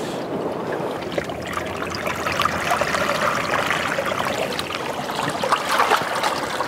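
Steady trickling and sloshing of seawater in a rocky tide pool, a dense wash of small crackles that grows a little louder about two seconds in.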